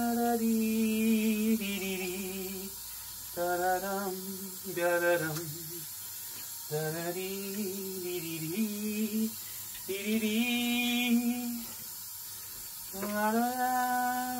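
A man humming a tune in about six short phrases of held notes, over the steady hiss of a kitchen tap running into the sink.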